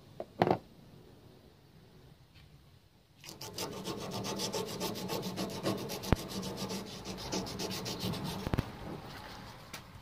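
Two sharp clicks about half a second in. From about three seconds in comes rapid, even rasping of a hand tool worked back and forth, like a file, at about six strokes a second.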